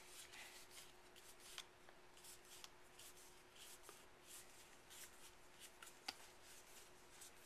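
Faint rustling of trading cards being flipped through by hand, with a couple of light clicks, over a low steady hum.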